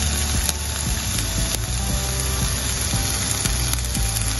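Sliced carrot, capsicum and frozen green peas sizzling in hot oil in a saucepan: a steady hiss with scattered small crackles.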